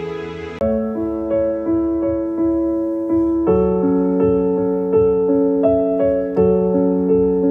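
Background piano music: a gentle piece of single notes struck close to three a second over held chords. It starts about half a second in, where an earlier track cuts off.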